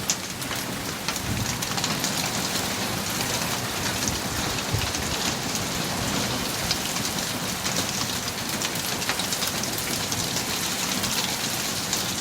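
Heavy rain falling steadily, with many small sharp impacts of drops striking a hard surface.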